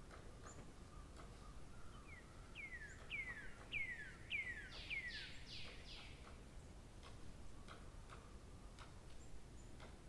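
A bird singing a run of about seven down-slurred whistled notes, a little under two a second, from about two to six seconds in. Faint scattered clicks and thin high chirps sound around it.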